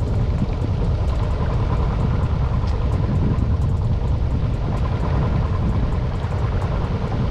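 Motor of a small wooden fishing boat running steadily under way, with wind buffeting the microphone.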